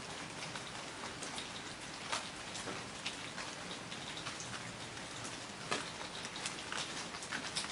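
Heavy rain falling steadily, a dense hiss with individual drops spattering and ticking on a surface throughout, a few louder splats standing out.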